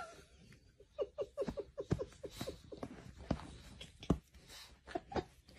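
A small dog giving a quick run of short, squeaky yips, each dropping in pitch, about six a second, during rough play, followed by scattered light knocks and rustles.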